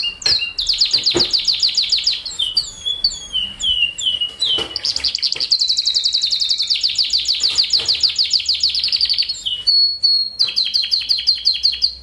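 Male canary singing a long song: fast trills, each a rapid run of identical sweeping notes, broken by slower falling notes and a short steady whistle near the end.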